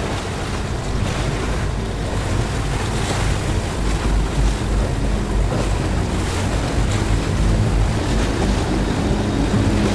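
Wind buffeting the microphone over the rush and slap of choppy water around a moving sailing catamaran, with a low steady drone underneath.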